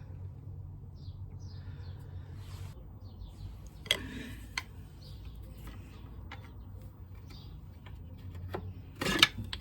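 Sharp metallic clicks of tools and a brake pad working against a motorcycle's rear brake caliper as the old pad is prised out, ending in a loud metal clatter near the end. Birds chirp faintly in the background over a low hum.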